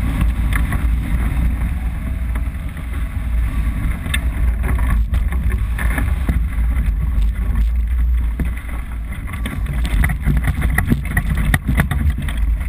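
Wind rushing and buffeting over the microphone of a camera mounted on a hang glider's wing: a loud, low rumble with scattered crackles as the glider flies low over the field and lands.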